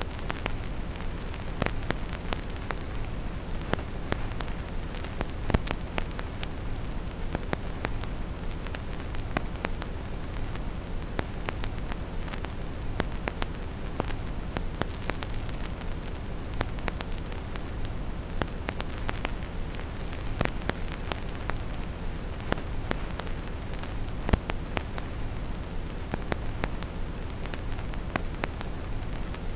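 Vinyl record surface noise with no music: irregular clicks and pops of varying strength from the stylus in the groove, over a steady, deep brown-noise hiss.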